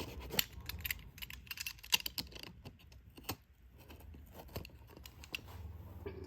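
Sticky, glue-covered parcel packaging being pulled and peeled open by hand: irregular clicks, ticks and crackles, a few sharper snaps among them.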